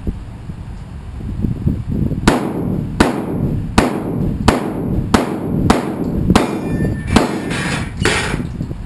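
A rapid string of about nine shotgun shots, roughly one every three quarters of a second, starting about two seconds in.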